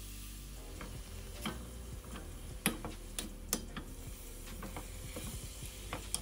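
Ground pork and turkey sizzling as they sear in a stainless steel pan, with a spatula scraping and knocking against the pan as it breaks up the meat; a handful of sharp clicks, the loudest a little under three seconds in and about half a second later.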